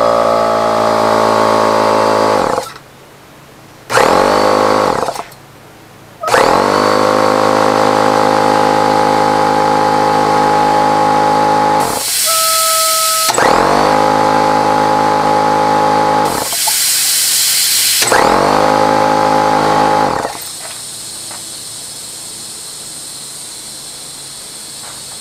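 Husky H1301F air compressor's motor and pump running in spells, stopping and restarting several times, with two short loud bursts of hissing air as it pops off; after about 20 s it stops and only a quieter steady hiss of air is left. It pops off and restarts because the pressure setting had been turned up as tight as it would go to make up for an old leak, so it builds to about 125 psi instead of 90.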